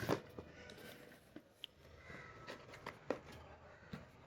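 Faint handling of packaging: light rustling with a few sparse, soft knocks and clicks.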